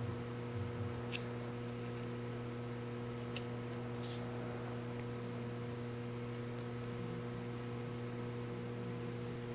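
Steady electrical mains hum with a few faint, small clicks about a second in and again a few seconds later.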